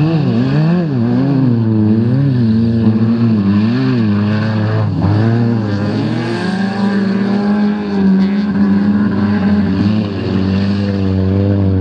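Engines of wrecked banger-race cars revving hard, the pitch rising and falling about once a second as the throttle is worked, with two engines heard at once. About halfway through the revs settle into a steadier high drone.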